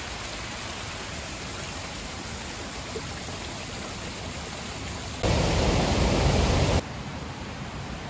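Mountain stream water running and trickling over rocks, a steady rushing hiss. About five seconds in, a louder, deeper rush cuts in abruptly and stops just as suddenly a second and a half later.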